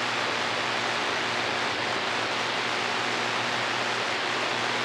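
CB radio receiver hissing with steady static between transmissions on channel 28, with a faint low hum under it.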